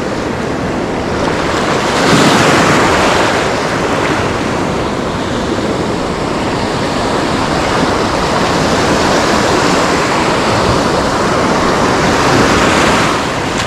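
Ocean surf washing and breaking on the shoreline, with wind buffeting the microphone; a louder wave surges about two seconds in and another near the end.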